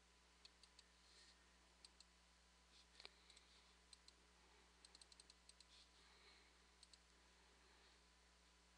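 Near silence: faint, scattered clicks of a computer mouse, with a quick run of them about five seconds in, over a faint steady hum.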